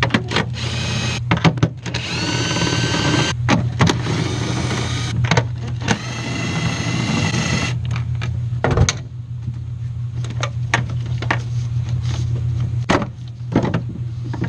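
A small power tool, such as a cordless driver, whirring in spurts for about seven seconds, its pitch rising as it spins up. This is followed by scattered clicks and knocks of parts being handled, over a steady low hum.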